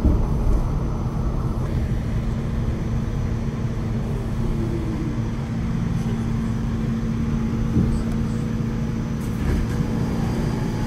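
New York City subway train heard from inside the car, running with a steady low rumble and hum as it pulls into a station.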